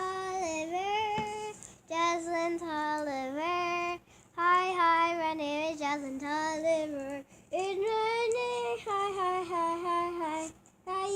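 A child singing in a high voice, holding long notes with slow pitch bends, in phrases of two to three seconds with short breaks between.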